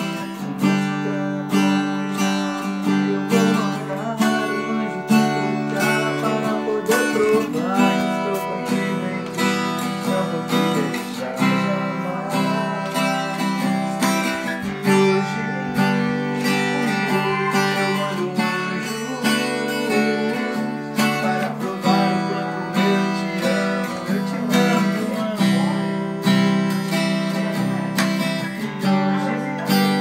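Acoustic guitar strummed in a steady rhythm, its chords ringing on.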